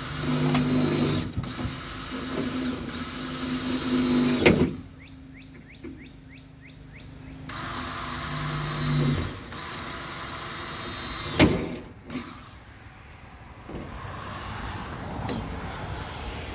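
Cordless drill running into the bus roof in two runs, a long one at the start and a shorter one about halfway through, with a few quick ticks between them. Two sharp knocks, one about four seconds in and one near two-thirds of the way.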